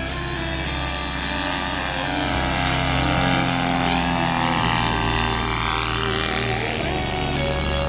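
Radio-controlled model airplane's engine running in flight, its note gliding up and down in pitch as it flies past, over background music.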